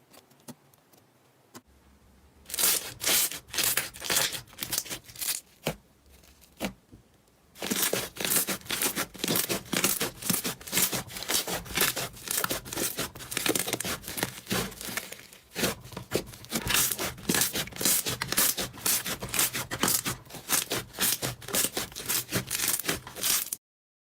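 Slime being squeezed and poked by hand, giving a dense run of sticky crackles and pops. The crackling pauses briefly about five seconds in, resumes thickly, and cuts off suddenly near the end.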